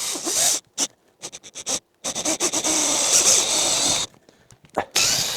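Power drill boring through a thin wooden wall with a crude bit that rips the wood, run in short bursts: a brief burst at the start, a few quick clicks, a two-second run in the middle, and another burst near the end.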